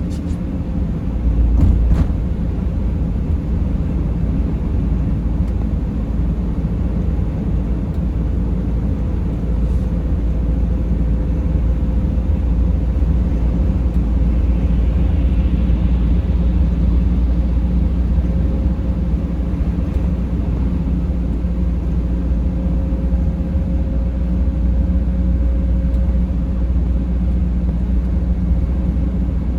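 Driving noise inside a vehicle's cabin: a steady low engine and road rumble with a faint steady whine above it. There is a brief thump about two seconds in.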